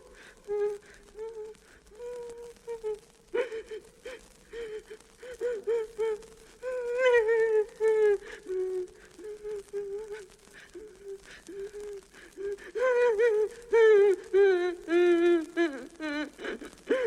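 A voice whimpering and moaning in short, wavering cries, with a fast quavering run of cries near the end.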